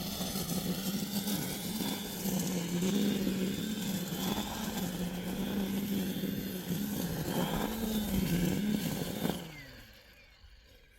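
A small gasoline engine revved up and held at high speed for about nine seconds, wavering a little under load, then throttled down and fading out near the end.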